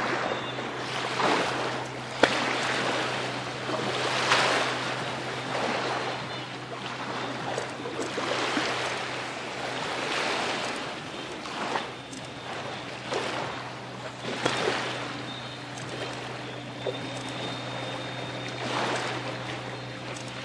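Shallow water lapping and washing, in uneven surges every second or two.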